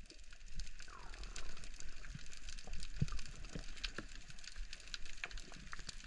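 Underwater ambience on a diver's camera: a steady crackle of scattered clicks, with a few low knocks and a short falling whistle about a second in.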